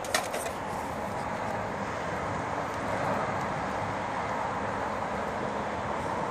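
Steady rushing background noise of distant vehicles, with a few light clicks right at the start.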